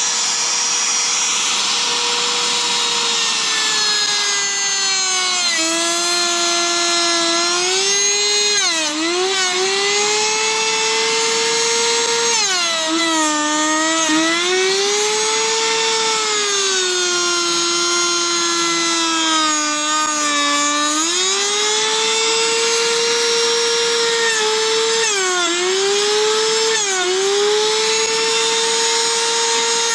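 EARTHMAN TR-100 electric trim router running with a high, steady whine, cutting along the edge of a wooden board. Its pitch holds for the first few seconds, then dips again and again as the bit bites into the wood and climbs back each time the load eases.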